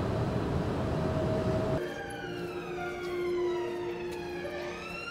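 A low rumble with a steady hum, cut off about two seconds in by a siren wail: a many-toned pitch that falls slowly for about three seconds, then rises again near the end.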